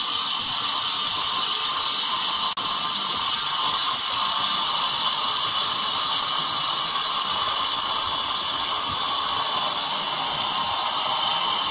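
Handheld angle grinder cutting into a concrete wall, its disc giving a loud, steady, high-pitched grinding hiss, with one momentary break about two and a half seconds in.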